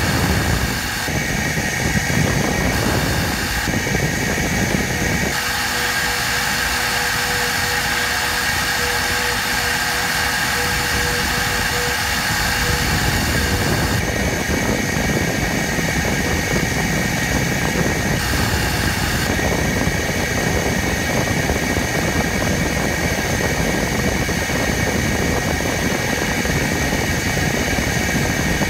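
A 0.75 kW CNC milling spindle running steadily at about 6,000 rpm with a constant whine while a 60° engraving cutter cuts shallow passes into a hardened-steel seal die. The high hiss of the cut comes and goes every few seconds as the cutter moves between passes, and a thin extra tone sounds from about five to twelve seconds in.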